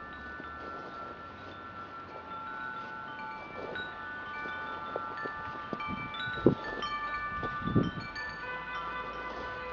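Chimes ringing: many overlapping held tones struck at irregular moments. Two dull knocks, the loudest sounds, come a little over a second apart about two-thirds of the way in.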